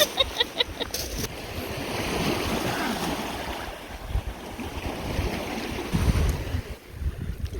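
Waves washing against a rocky Lake Superior shore, a steady rush, with wind buffeting the microphone. In the first second there is a quick series of short, high-pitched notes.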